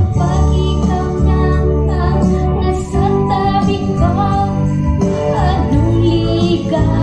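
A woman singing a Tagalog love song into a microphone over a recorded backing track with a steady bass, holding one note with vibrato about six seconds in.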